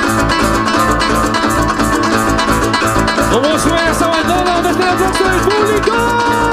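Bandola llanera plucked in a fast, busy melody over a steady band rhythm, in Colombian llanero folk music. About halfway in, a singing voice comes in with long sliding notes.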